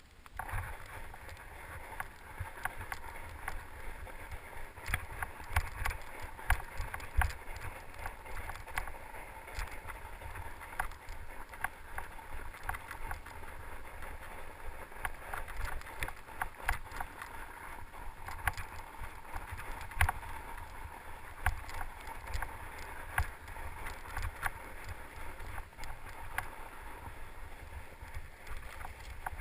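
Fat bike riding over snow: the wide knobby tyres rolling on packed snow, with frequent knocks and rattles from the bike over bumps and a low rumble of wind on the microphone.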